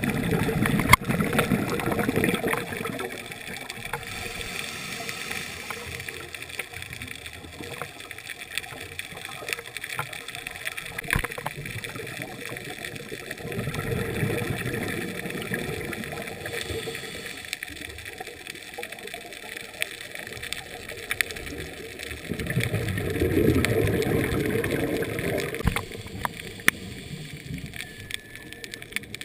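A scuba diver's exhaled breath bubbling out of the regulator, heard underwater through the camera housing: three long gurgling rushes of bubbles, one near the start, one about halfway through and one near the end, over a steady underwater hiss.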